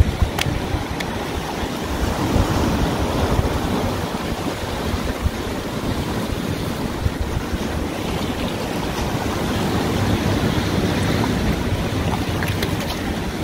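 Small waves washing over shoreline rocks, with wind buffeting the microphone: a steady rushing noise.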